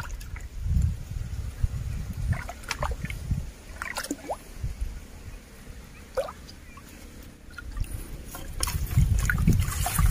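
Shallow stream water disturbed by a hand net: scattered drips and plops at first, then louder splashing and sloshing near the end, over low rumbles.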